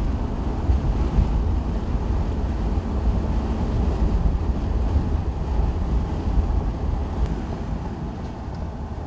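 Wind buffeting the microphone over the low rumble of a moving vehicle, gusting unevenly and easing a little near the end.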